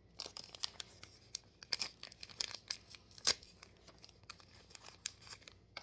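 Small plastic packaging of Mini Brands minis being torn open and crinkled by hand: irregular crackling with sharp snaps, the loudest a little past three seconds in.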